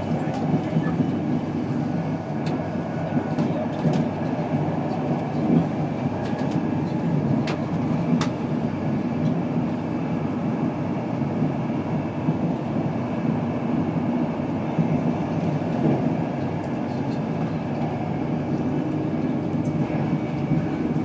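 Steady rumble of wheels on the rails heard inside a Mark 4 passenger coach of an InterCity 225 hauled by a Class 91 electric locomotive at speed, with a few sharp clicks.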